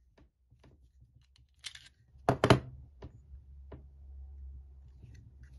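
Metal clicks and knocks of a French Model 1935A pistol being handled, with a short scrape and then two loud, sharp clacks close together about two seconds in.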